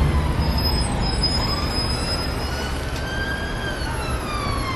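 Emergency vehicle siren wailing, sliding slowly up in pitch and back down once, over the steady rumble of road traffic.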